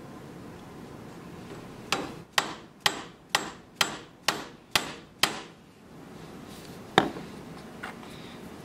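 A mallet striking the end of a wooden dowel, driving it down: eight quick, sharp blows about two a second, then after a pause one harder single blow about seven seconds in.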